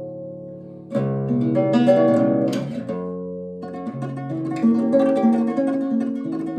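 Nylon-string guitar played fingerstyle: a classical tremolo passage, with rapidly repeated plucked notes over bass notes, played higher up the neck. A held note dies away, and the playing picks up again about a second in.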